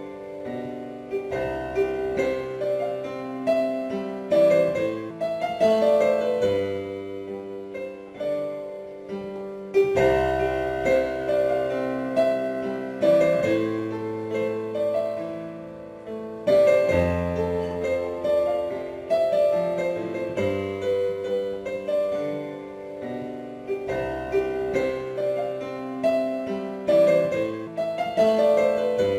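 Background piano music: a slow melody over sustained bass notes.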